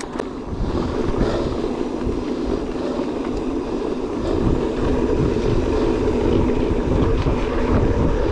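Wind buffeting the microphone with rolling rumble from an electric mountain bike being ridden, getting louder about four seconds in.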